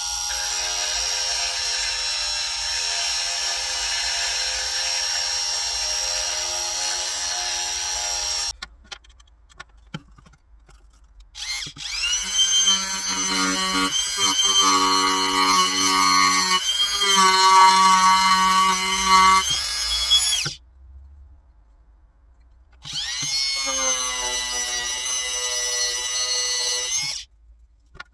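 Small electric rotary tool (drill-type) running at high speed with sandpaper, grinding down a superglue-hardened tissue build-up on a fishing rod section. It runs three times: it cuts off after about eight seconds, runs again from about twelve to twenty seconds with its pitch shifting under load, and spins up once more for a last few seconds.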